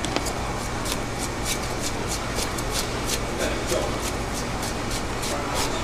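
A knife cutting and scraping the skin off a bluefin tuna: a run of short, crisp scrapes and clicks, several a second, over a steady low hum and faint background voices.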